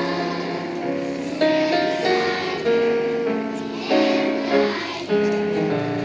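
A patriotic song sung by a group of young children with piano accompaniment, the piano's notes changing every half second or so.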